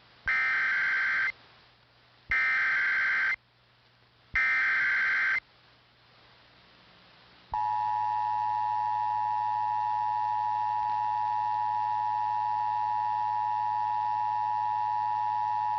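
Emergency Alert System tornado warning: three one-second bursts of SAME header data about a second apart, then, about halfway through, the steady two-tone EAS attention signal.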